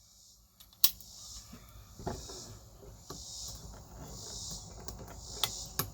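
Steady high chirring of insects, with one sharp click about a second in and two lighter clicks near the end.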